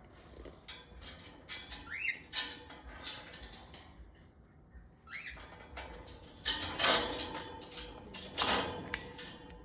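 A broody hen macaw guarding her nest makes a run of short squeaks, chirps and scratchy noises, with a few quick rising chirps among them. The loudest bursts come about two thirds of the way through.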